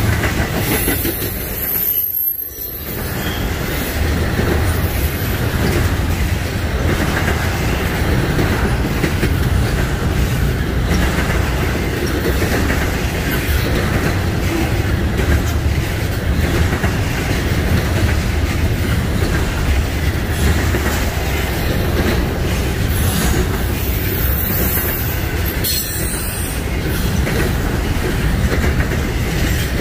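Norfolk Southern freight train rolling past: a steady rumble of wheels over the rails, with brief high-pitched wheel squeal near the start and again near the end.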